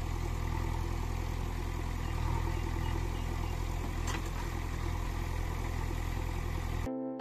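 Steady engine-like drone with a low hum as the toy tractor and toy backhoe loader work together in the sand, with a short click about four seconds in. Electronic music cuts in abruptly near the end.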